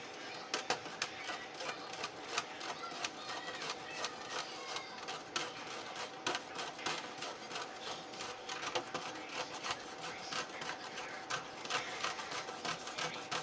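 A spoon stirring a drink in a mug, with rapid, irregular clinks against the sides of the cup, over a faint steady hum.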